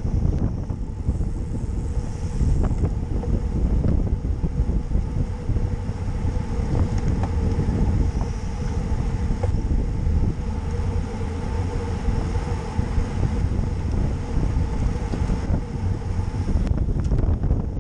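Wind buffeting the microphone of a camera on a bicycle at race speed, over the rumble of tyres on the road, with a faint steady hum.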